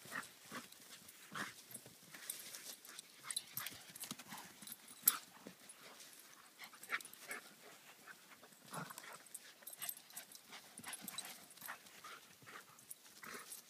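Portuguese Water Dog running on grass: faint, irregular thuds and taps of its paws, with one sharper tap about five seconds in.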